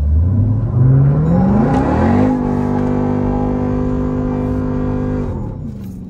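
SUV engine, heard from inside the cabin, revving up hard under acceleration. Its pitch climbs steeply for about two seconds, holds steady and high for about three seconds, then drops away near the end.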